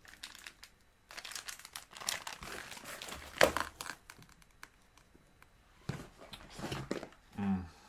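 Packaging crinkling and rustling as items are handled and taken out of a parcel, in irregular spells with sharp crackles, the loudest about three and a half seconds in. A short voice sound near the end.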